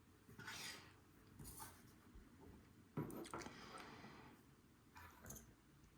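Faint handling noises of small padlock parts being moved about: a few soft rustles and light knocks, the sharpest about three seconds in.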